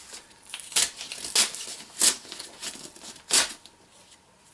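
Packaging torn open by hand with a finger: four sharp rips with crinkling between them, then quieter in the last second.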